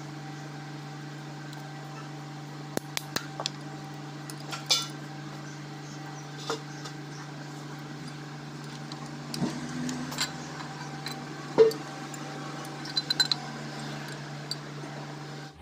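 Scattered metal clinks and taps of bolts and gear parts being handled and lifted off the timing-gear plate of a Kubota M9000 diesel engine block, with a small cluster of quick clicks early on and the loudest knock about three quarters through. A steady low hum runs underneath.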